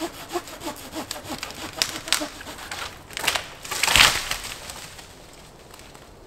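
Hand saw cutting through a dry deadwood branch in quick, even strokes. About four seconds in the branch gives way with one loud crack, and then the sawing stops.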